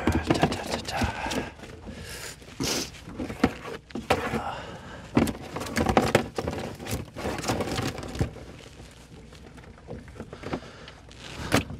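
Irregular knocks and clatter of gear being handled aboard a small boat while a langoustine pot is emptied: many sharp thunks, busiest over the first eight seconds, then fewer, with one loud knock near the end.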